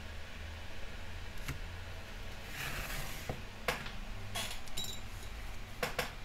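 A few light clinks and taps from handling an airbrush and its metal paint cup while the paint is stirred and the tools are set down and picked up, over a low steady hum.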